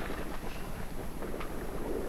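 Steady rushing hiss of boiling water and steam from a geothermal hot spring vent, with a low rumble underneath.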